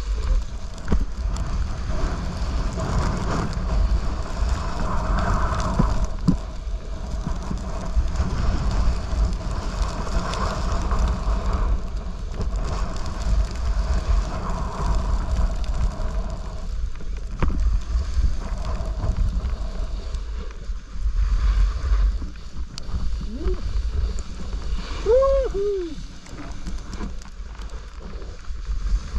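Snowboard sliding and scraping over packed snow, with wind rumbling steadily on the body-worn camera's microphone; the scraping swells and fades with each turn. Near the end, a few short rising-and-falling pitched sounds like a brief call.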